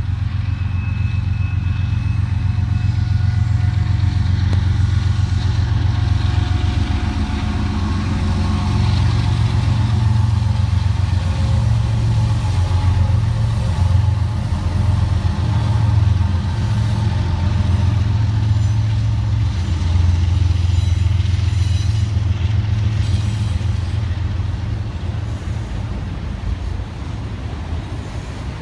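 A BNSF diesel freight locomotive going by with a strong, steady low engine drone. Enclosed autorack freight cars follow, rolling past on the rails, with the sound easing a little near the end.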